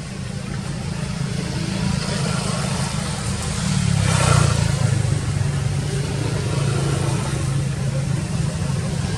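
A motor vehicle's engine running with a steady low rumble, growing louder to a peak about four seconds in, as if passing close by, then easing back.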